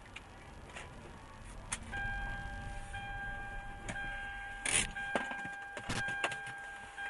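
A steady electronic warning tone inside a car starts about two seconds in and keeps sounding, with short gaps roughly once a second, over low road rumble as the car comes to a stop. Several sharp knocks and thumps land in the second half, the loudest a little past the middle.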